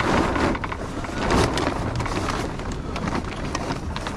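Wind buffeting the microphone of a mast-mounted camera on a sailing yacht under way: an uneven rushing noise with a lumpy low rumble and scattered clicks.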